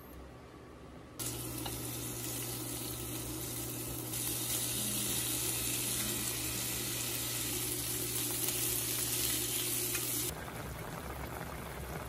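Sliced meat sizzling in a frying pan as cabbage and onion are added. The sizzle starts suddenly about a second in, gets louder at about four seconds and cuts off near the end, leaving a quieter bubbling of a pot of soup.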